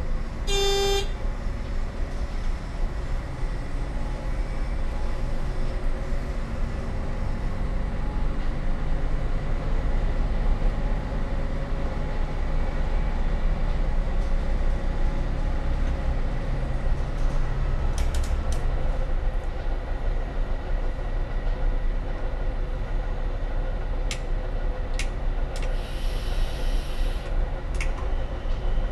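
Y-train diesel railcar running along the line, heard from the driver's cab as a steady rumble of engine and wheels. A short toot of the horn comes about half a second in, and sharp clicks and a brief hiss come near the end.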